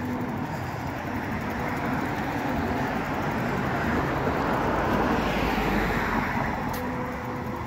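A car passing on the street: its tyre and engine noise swells to a peak about five seconds in and then fades.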